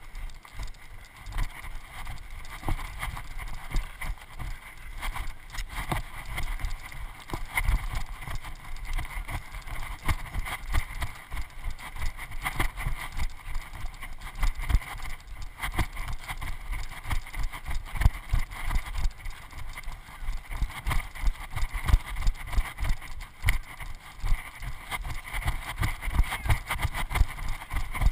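A runner's footfalls on a dirt trail, going downhill: a quick, steady series of low thumps, one with each stride, the camera jolting with them.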